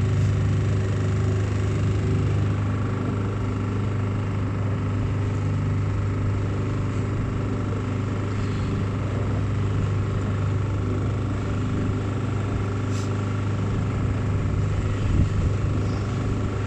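Motorboat engine running steadily at cruising speed, a constant low droning hum.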